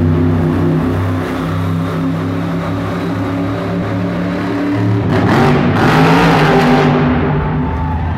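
Monster truck engines running loud with a steady low drone, then a louder rush of noise about five seconds in that lasts roughly two seconds before settling back to the engine drone.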